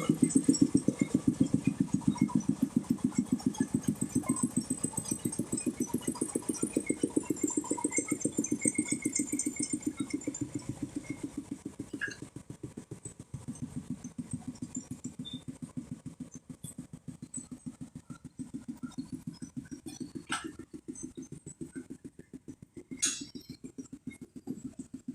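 A brick-making machine's engine running with a steady, fast, even beat, turning quieter about halfway through. Two sharp clicks come near the end.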